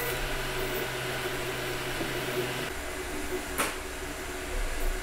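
Anycubic Kobra 3 3D printer running a print: a steady whir of its fans and motors. A low hum drops out a little past halfway, and there is one brief sharp sound near three-quarters of the way in.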